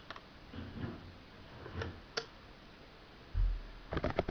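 Small hard objects, nail-polish bottles and a metal stamping plate, being handled and set down on a marble countertop: a few faint clicks, a dull bump, then a quick run of sharp clicks and knocks near the end.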